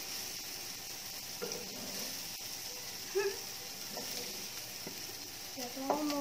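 Diced onion and garlic sizzling steadily as they sauté in a nonstick frying pan. A plastic spatula stirs them, with a few light clicks against the pan.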